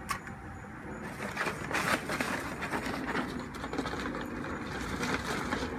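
Live crabs being dropped with metal tongs into an aluminium steamer pot: irregular clattering and scraping of hard shells and tongs against the metal, busiest about a second and a half in.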